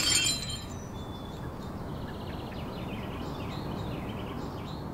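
The last shards of a shattered ceramic vase clinking as they settle, followed by steady outdoor background noise with small birds chirping.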